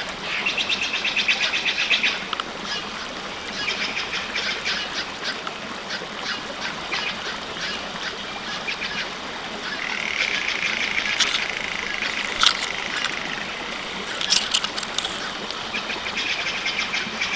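Birds calling in quick high trills, with a longer held whistle about ten seconds in. A few sharp cracks come through, the loudest about twelve seconds in.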